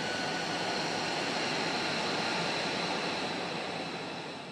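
Jet aircraft engine running with a steady rushing noise and a faint high whine, fading out near the end.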